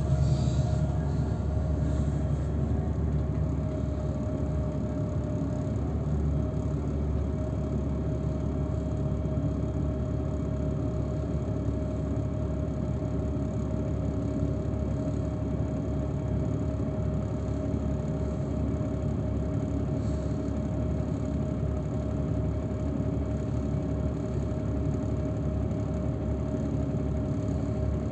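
Steady engine and road rumble of a moving shuttle vehicle, heard from inside, with a faint steady whine over it.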